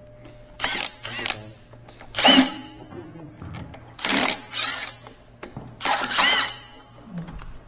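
Cordless Milwaukee impact wrench hammering at the bolts on the brass manifold head of a high-pressure plunger pump, in several short bursts a second or two apart. Each burst whines up and down as the motor spins up and stops.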